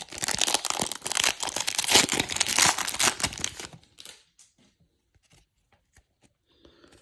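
A foil trading-card pack wrapper being torn open and crinkled for about three and a half seconds, followed by faint ticks of cards being handled.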